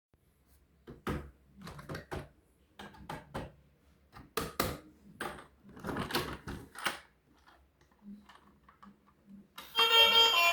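Toy packaging and plastic toy vehicles being handled for unboxing: a run of irregular small clicks, taps and rustles. Music starts near the end.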